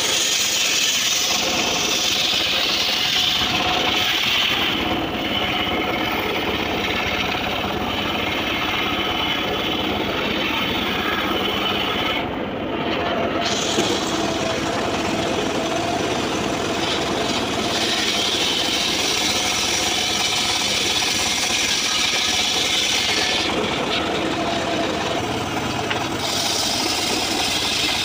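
Homemade circular saw ripping a teak log lengthwise, the blade cutting steadily through the wood with a brief lull about halfway through.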